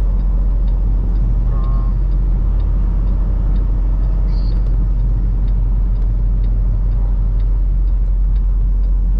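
Steady low rumble of a semi-truck with strong wind noise, unchanging in level throughout.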